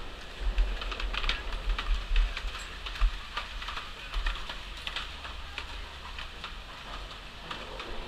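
Irregular clicking and clattering of skis and ski poles on the plastic grid matting of a chairlift boarding area, over a low rumble.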